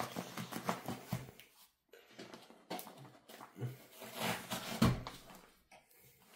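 Paper padded mailer rustling and tearing as it is pulled open, a string of irregular crinkles and scrapes with brief pauses.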